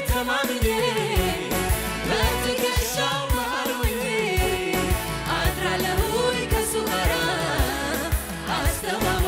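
A woman sings the lead of an Amharic gospel worship song into a microphone, with a choir singing behind her. A band plays under them with a steady drum beat of about three strokes a second.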